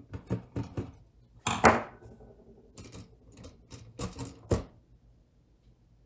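Small clicks and louder plastic clacks and knocks as the Sonoff 4CH Pro relay's plastic case is unscrewed with a screwdriver, pulled apart and its pieces and the screwdriver set down on the table. A quick run of light clicks comes first, with the loudest knocks about a second and a half in and around four to four and a half seconds in.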